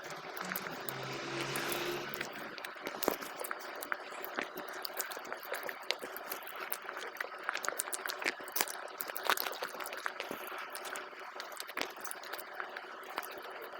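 Close-up eating sounds of a mouthful of soft rice congee: wet chewing and lip smacking, with many small irregular clicks. There is a brief low hum in the first two seconds or so.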